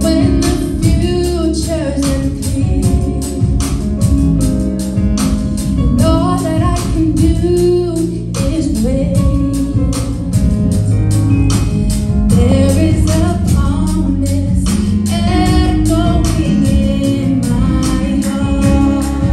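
Choir of women and girls singing a gospel song over band accompaniment with a steady drum beat.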